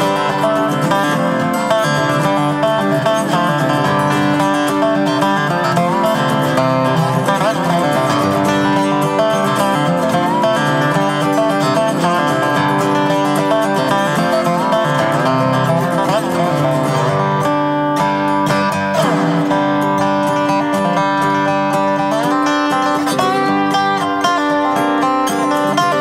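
Acoustic guitar and dobro playing an instrumental folk tune, with notes sliding up and down in pitch.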